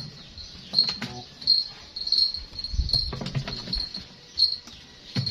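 Insects chirping steadily in short, high, repeated chirps, mixed with a few low knocks and rustles as caught frogs are handled and put into a container.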